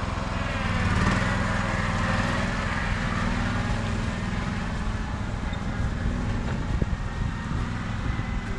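A small engine running steadily, swelling a little about a second in.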